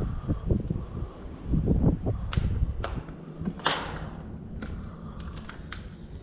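Scrambling over a stone wall: wind buffeting the microphone at first, then several sharp knocks and scuffs and a short scraping rush a little before the middle.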